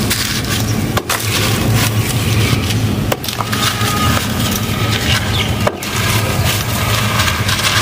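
Dry lumps of a cement-and-dirt mix crushed and crumbled by hand, a continuous gritty crackling as the grains pour onto a pile on a concrete floor, with brief breaks about one, three and nearly six seconds in. A low steady hum runs underneath.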